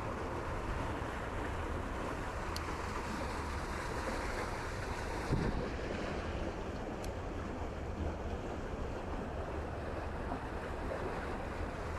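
Fast-flowing creek water rushing steadily, with wind buffeting the microphone as a low rumble. A single soft thump about five seconds in.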